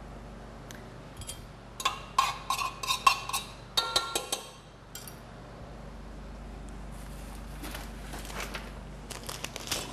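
Cooking utensils handled at a kitchen counter: a quick run of sharp, ringing metal clinks and knocks, like a spoon and a steel pot, about two seconds in, then faint rustling and light clicks near the end.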